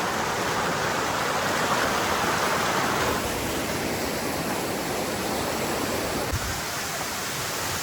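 Steady rushing of a waterfall, an even wash of water noise that eases slightly about three seconds in.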